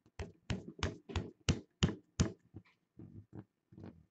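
Rigid plastic top loader being tapped against the palm to slide a trading card out: a quick, even run of about seven sharp taps, roughly three a second, then a few softer ones.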